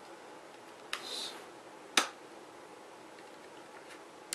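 Plastic screen bezel of a Sony Vaio laptop being pried loose with a small screwdriver: a click and a short scrape about a second in, then one sharp snap about two seconds in as a retaining clip lets go, and a faint click near the end.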